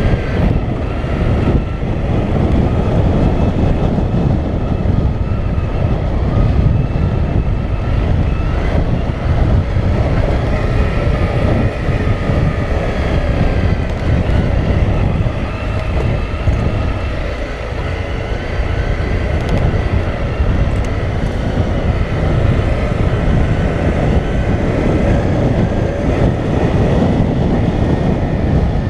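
Honda CRF250L's single-cylinder engine running steadily as the motorcycle rides along a loose cinder dirt track, under heavy wind rumble on the helmet-mounted microphone.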